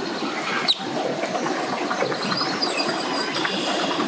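Birds chirping over a steady wash of background noise, with one sharp click about three quarters of a second in.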